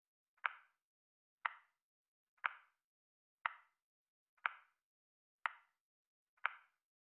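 Steady clock-style ticking, one short dry tick each second, seven in all, counting off the seconds of a countdown timer.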